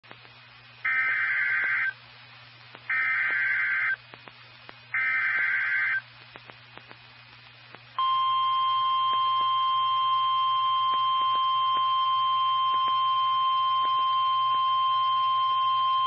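NOAA Weather Radio Emergency Alert System tones: three one-second bursts of warbling SAME header data tones, about two seconds apart, then about eight seconds in the steady warning alert tone starts and holds. A low hum and scattered static clicks from the radio receiver run underneath.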